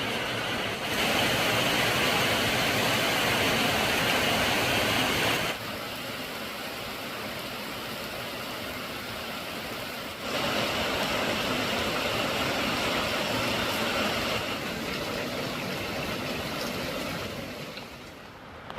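Steady noise of rushing floodwater, stepping abruptly louder or softer several times: up about a second in, down at about five and a half seconds, up again at about ten, and fading near the end.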